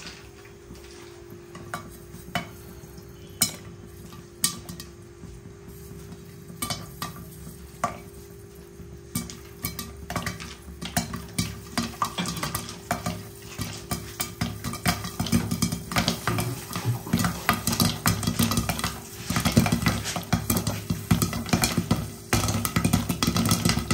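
Popcorn kernels popping in a hot, glass-lidded pan: a few scattered pops at first, growing into rapid, dense popping from about ten seconds in as the pan fills. A steady low hum runs underneath.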